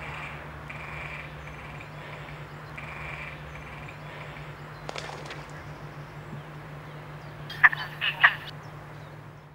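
Great crested grebes calling at the nest during mating: a croaking call repeated about once a second for the first few seconds, then three short, loud calls close together about eight seconds in.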